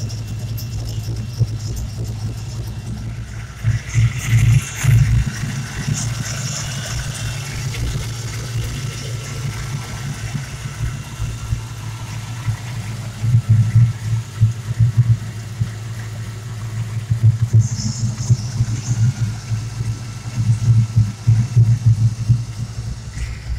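A 351 Windsor small-block Ford V8 idling unevenly, with repeated louder, lumpy swells and a faint steady high whine. The owner puts this down to a vacuum leak from a torn brake booster diaphragm.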